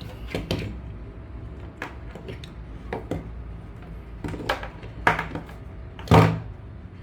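Charger plugs and cables being handled: a series of scattered clicks and knocks, with the loudest knock about six seconds in, over a steady low hum.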